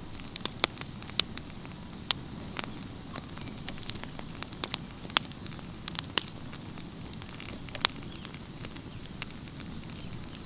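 Wood campfire burning: a steady low rush of flames with irregular sharp crackles and pops, roughly one every second or so.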